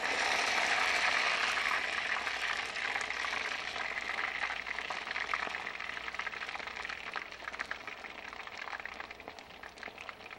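Breaded potato and rice balls deep-frying in a pot of hot oil: a loud sizzle at first that eases off gradually, breaking into separate crackling pops near the end.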